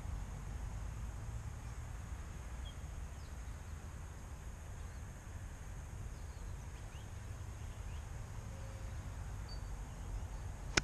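Wind rumbling on the microphone, with a few faint bird chirps and a thin steady high tone. Right at the end comes one sharp click: an iron striking a golf ball off the tee.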